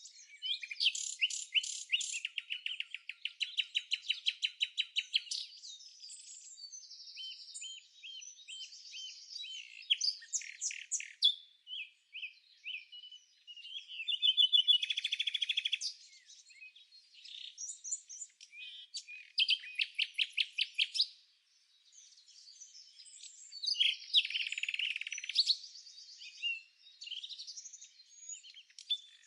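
Songbirds singing, a series of high, rapid trilled and chirping phrases a second or two long with short pauses between them.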